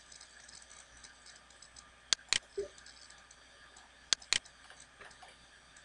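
Computer mouse clicks: two quick pairs of sharp clicks about two seconds apart, over a faint steady hiss.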